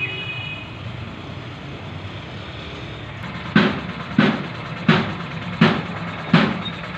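A steady low hum, and from about halfway in, five heavy thumps evenly spaced about two-thirds of a second apart.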